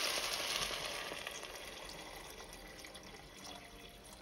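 Water poured from a plastic container into a pot of diced potatoes and tomato sauce, the splashing pour dying away over about the first two seconds.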